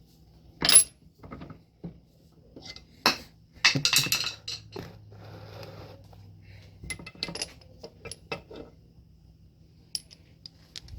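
Steel sockets and a small metal bushing clinking and rattling as they are handled at a bench vise. Sharp metallic clinks with a brief ring: the loudest comes about a second in, and more follow around three to four seconds and again near seven to eight seconds.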